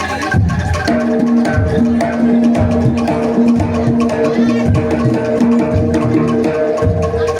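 Live jaranan music: a traditional Javanese ensemble with drums and percussion keeping a steady beat, joined about a second in by a sustained, held melodic tone.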